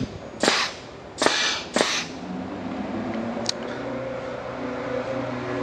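Short sharp blasts of compressed air from a pneumatic solenoid valve manifold as its manual override is pressed and the actuator swings the butterfly valve, three in the first two seconds. After them comes a steady low hum with a faint click.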